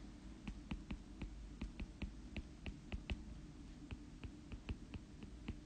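Stylus tapping and clicking on a tablet screen while handwriting: a run of faint, irregular ticks, about three a second, with a short pause a little past the middle.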